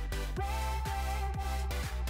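Electronic dance background music with a steady, evenly spaced kick-drum beat under sustained synth tones.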